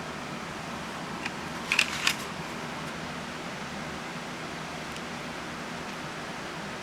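Steady hiss with a few sharp clicks close together a little under two seconds in.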